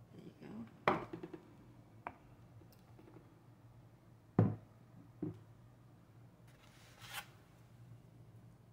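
Light handling noises: a plastic fork scraping and tapping in a styrofoam takeout box of fried rice, with a few scattered clicks and one louder knock about four and a half seconds in.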